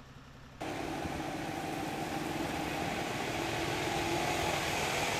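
A low engine hum, then after about half a second a sudden switch to a louder, steady heavy truck engine running with a hiss over it.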